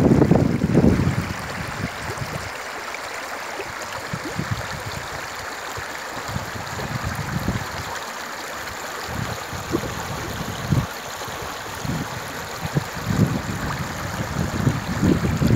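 Shallow river water flowing and rippling over stones: a steady rushing murmur. Irregular low bumps come and go over it, heaviest in the first second and again near the end.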